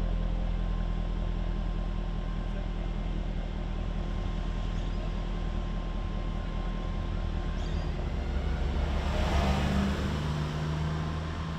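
2020 Jaguar F-Type R's supercharged 5.0-litre V8 idling steadily at a standstill, heard through its exhaust with the roof down. About nine seconds in, a passing bus swells louder and fades away.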